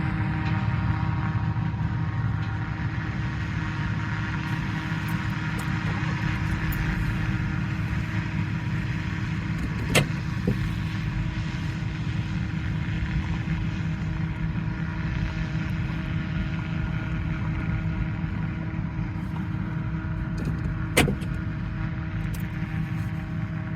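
An engine running steadily with a low hum and several steady tones. Two sharp clicks cut through it, about ten seconds in and again about twenty-one seconds in.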